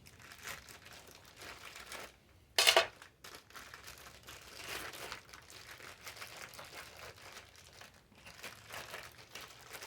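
Crinkling and rustling of packaging as parts are handled, with one short, loud squeak about two and a half seconds in.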